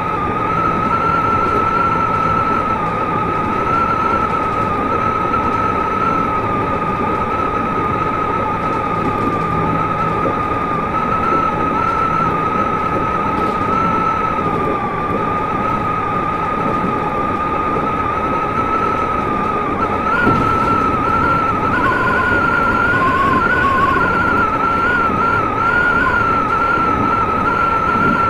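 Toei 5300 series electric train running at speed: a dense running rumble with a steady high whine that wavers slightly in pitch, and a second, lower tone joining it for a couple of seconds near the end.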